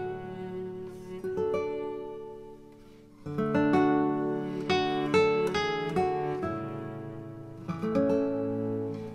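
Background music played on acoustic guitar, plucked notes and strummed chords, softening about two seconds in and returning fuller about three seconds in.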